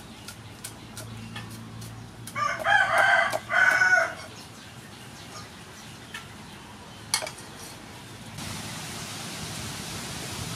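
A rooster crows once, a long crow starting about two seconds in and the loudest thing here. Around it, a cleaver chops green onions on a wooden chopping board with light knocks, one sharper knock about seven seconds in. A steady hiss comes in near the end.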